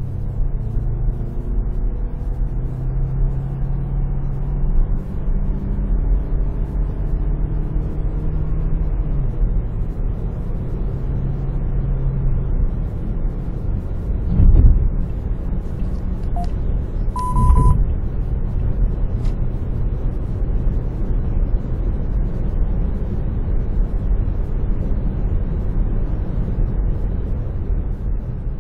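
Steady road and engine noise inside a car's cabin at freeway speed, a low drone. About halfway through come two thumps some three seconds apart, the second with a short high beep.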